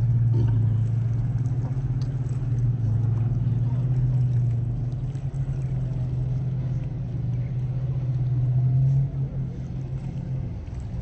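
A steady low rumble, like a motor running, that eases a little near the end.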